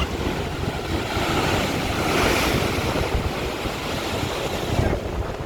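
Ocean surf surging and washing against coastal rock, with wind buffeting the microphone. The wash swells to its loudest a little over two seconds in, and the sound eases off near the end.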